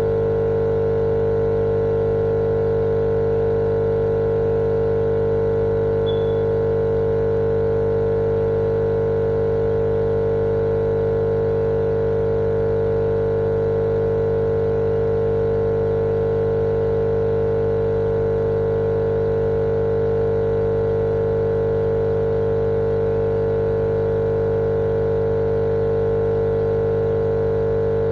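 Steady, unchanging droning hum with one strong mid-pitched tone over a lower rumble and a little hiss: a continuous 'white noise' sleep sound for babies.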